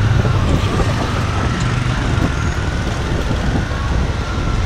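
Motor scooter engine running along a road, a steady drone mixed with rumbling wind and road noise.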